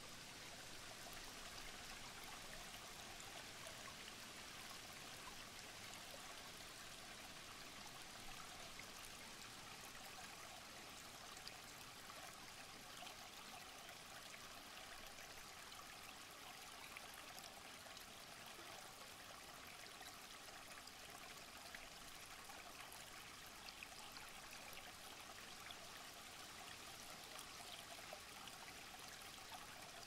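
Shallow rocky stream running over stones and small cascades: a faint, steady rush of water with small splashes.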